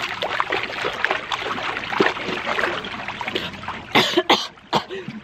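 Water splashing and churning as a person doggy-paddles across a hot tub, for about four seconds. Near the end come three or four loud, short coughs.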